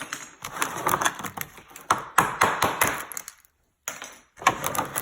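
Quick runs of light taps knocking the stringer spacers loose from a carbon fibre rib mould, in several bursts with short pauses between them.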